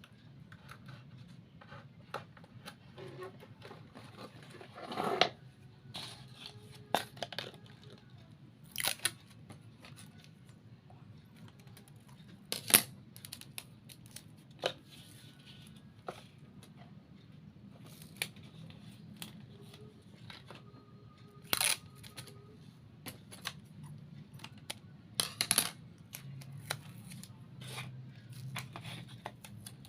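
Hands cutting and handling craft materials while building a model: irregular sharp snips and clicks, with a few short tearing or rustling bursts, over a faint low hum.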